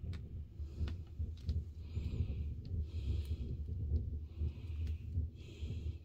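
Wood fire burning in a fireplace: a steady low rumble with scattered sharp crackles, and several short hissing puffs.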